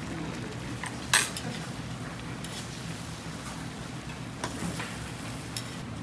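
Utensils clinking against dishes a few times, the sharpest clink about a second in, over a steady low hum.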